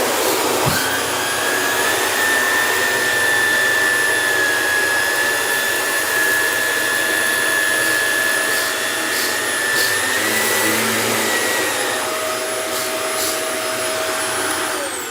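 Shark Professional upright vacuum running on a rug at its level-2 carpet setting, sucking up flour, with a steady motor whine. Near the end it is switched off and the whine falls in pitch as the motor spins down.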